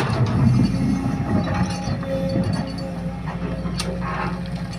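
Sumitomo hydraulic excavator's diesel engine running with a steady low hum, heavier in the first two seconds while it works; a faint steady whine joins about two seconds in.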